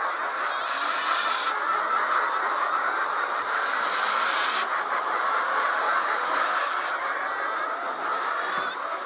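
Steady, dense din of a large flock of laying hens clucking and calling together, with no single bird standing out.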